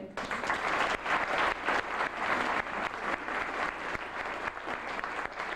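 Audience applauding, starting suddenly and easing slightly near the end.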